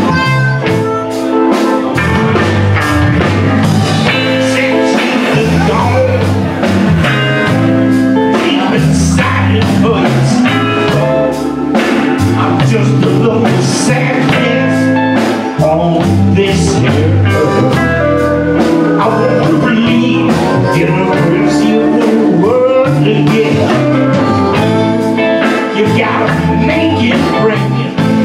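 Live blues band playing, with electric guitars, bass and drums, and a man singing.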